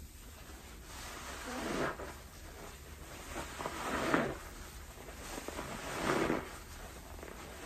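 Thick foam of pine cleaner mixed with Domestos bleach, squeezed and pressed by a gloved hand in a bucket: three wet squeezes about two seconds apart, each swelling and then cutting off.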